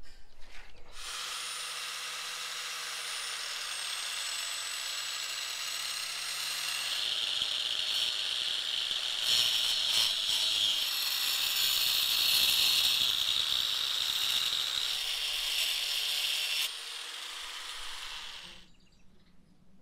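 Electric angle grinder starting up and running, its cutting disc pressed into raw meat. The sound grows louder and harsher about seven seconds in as the disc bites, eases near the end, and the motor then winds down and stops.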